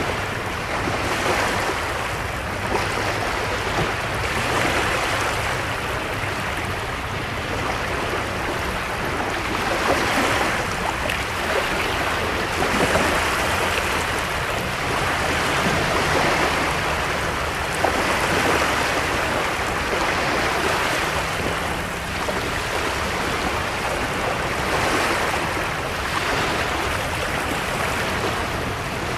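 Small waves washing onto a shore, a continuous rush of surf that swells and eases every few seconds.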